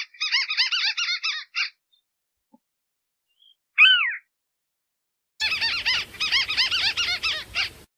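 Recorded call of a white-browed crake played as a bird lure: a fast chattering series of squeaky notes that breaks off after about a second and a half. A single loud downward-gliding call comes near the middle, then the chatter starts again about two-thirds of the way through with a faint hiss under it.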